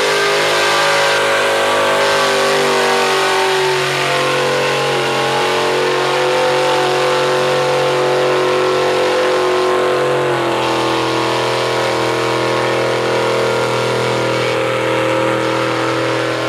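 Mud bog truck's engine running hard at high revs as it churns through the mud pit. The pitch holds high and steady, then steps down about ten seconds in.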